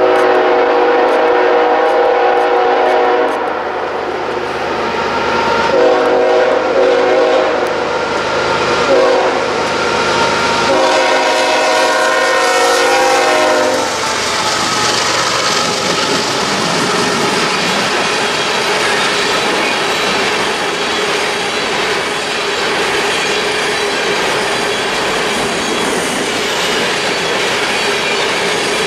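BNSF diesel freight locomotive's air horn sounding three long blasts of about three seconds each as the train approaches. About fourteen seconds in the horn stops and the locomotives pass close by, followed by a long string of empty taconite ore cars rolling past with steady wheel clatter.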